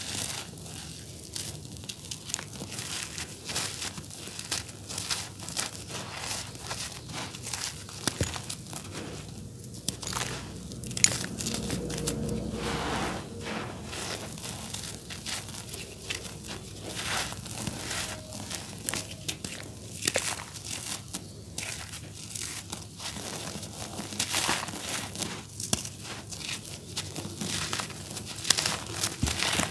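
Dry, grainy charcoal cakes crushed and crumbled in bare hands, a dense crackling crunch of breaking grains with powder and crumbs sifting onto loose grit. The crunch swells briefly about twelve seconds in.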